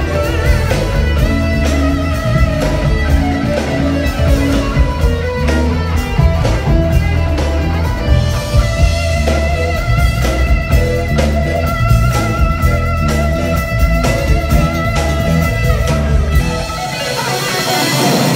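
Live cover band playing loudly through a PA, with guitar prominent over a heavy bass line. About a second and a half before the end, the deep bass drops out and held higher notes carry on.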